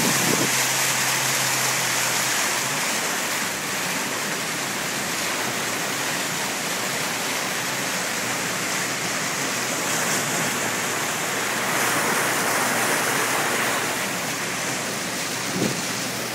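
Floodwater rushing and splashing around a 1998 Jeep Wrangler as it drives through deep water, a steady wash of noise that swells a little about twelve seconds in. One brief knock near the end.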